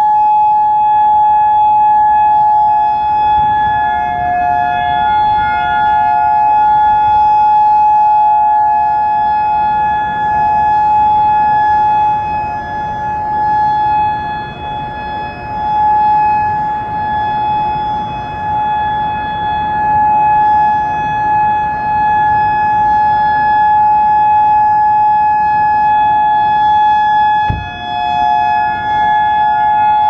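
Federal Signal Modulator 4016 electronic siren sounding its 'Full Alert' signal: one steady held tone, loud, its level wavering and dipping now and then.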